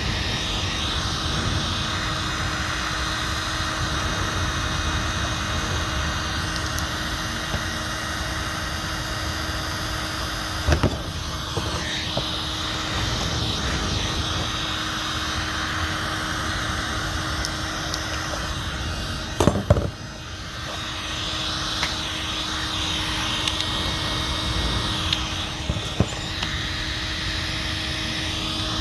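Heat gun blowing steadily with a constant hum, softening old caulking for scraping. A few sharp knocks stand out about eleven and twenty seconds in.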